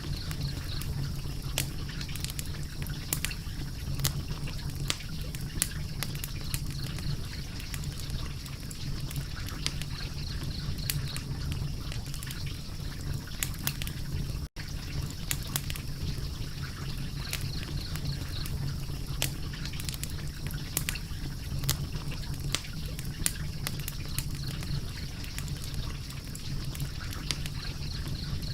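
Wood fire crackling steadily over a low rumble, with irregular sharp pops and snaps. The sound cuts out for a split second about halfway through.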